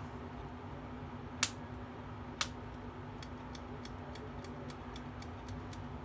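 Rotring Tikky mechanical pencil clicked by hand: two sharp clicks a second apart, then a quick run of about ten lighter clicks, roughly four a second, from the push-button advancing the lead.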